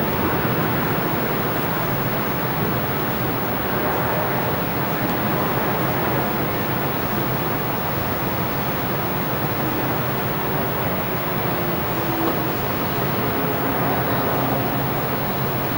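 Steady rumble of idling motor vehicles and road traffic, an even noise with no breaks.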